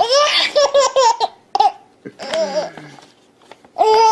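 Baby laughing hard in three bouts of high, shaking belly laughs, with the rip of paper being torn close by.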